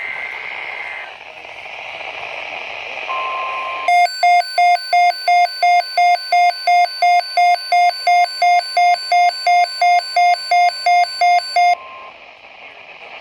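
NOAA Weather Radio alert heard through a weather radio receiver, over steady radio hiss. The tail of a SAME data burst warbles for the first second. The steady 1050 Hz warning alarm tone starts about three seconds in. A second later the receiver's own alarm joins it, beeping loudly about three times a second, and both stop near the end.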